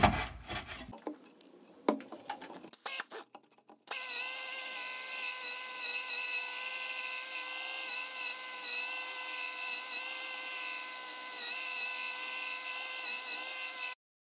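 Harbor Freight air polisher running on its low setting with its foam pad on a plastic radio case: a steady whine with air hiss. It starts about four seconds in, after a few knocks and clicks of handling, and cuts off abruptly near the end.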